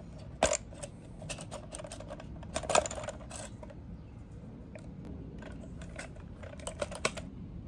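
Sharp plastic clicks and taps from unclipping the wiring plugs and tabs on a car's fuel pump module. The loudest snaps come about half a second and about three seconds in, with a quick run of clicks near the end.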